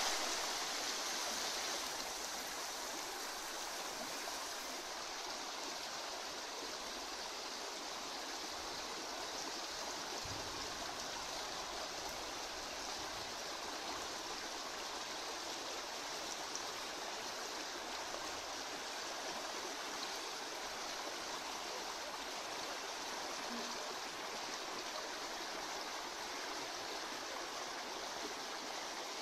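Steady rush of running water in a fish tank.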